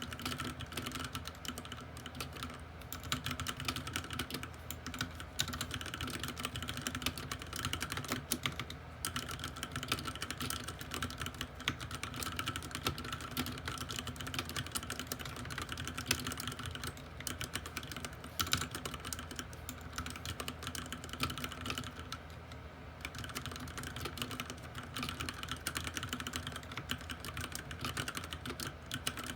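Typing on a Ducky One 2 TKL mechanical keyboard with Cherry MX Red linear switches and PBT keycaps: a rapid, continuous patter of keystrokes. The typing eases briefly about three quarters of the way through.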